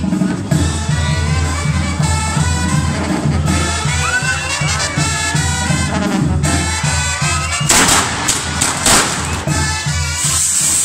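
Brass band music with a steady bass beat. A few loud firework bangs come near the end, then a steady fizzing hiss starts as the castillo firework tower ignites and sprays sparks.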